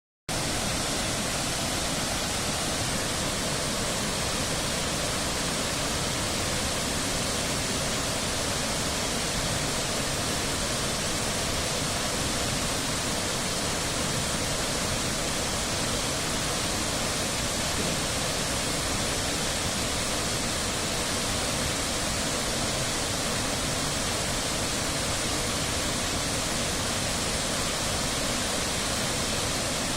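Waterfall: a steady, dense rush of falling water, loud and unbroken.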